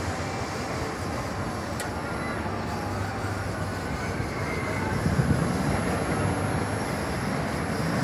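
Steady rumble of a roller coaster train running on its steel track. It grows louder in the second half.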